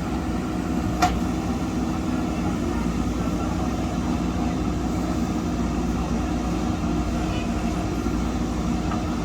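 Diesel engine of a backhoe loader running steadily while digging and loading soil, with a single sharp knock about a second in.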